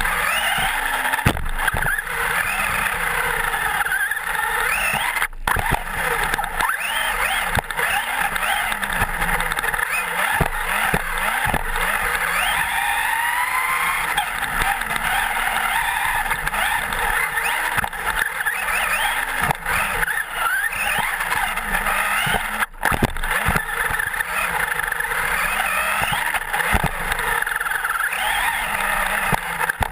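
Traxxas Slash 4x4 electric RC truck driving hard, heard from a camera mounted on it: the motor and geartrain whine rises and falls with the throttle over a steady clatter of knocks from the chassis on bumps and landings.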